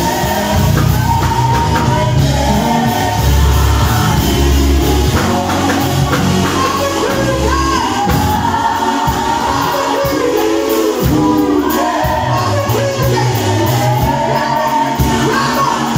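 Gospel vocal group singing live, several voices together over a musical backing whose deep bass is strong for the first half and thins out about halfway through.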